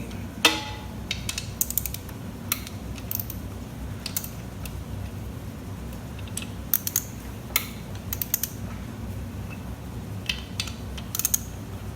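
Hand ratchet clicking in short bursts as bolts on a Ford 4R75E transmission case are cracked loose, with a loud sharp metal knock about half a second in.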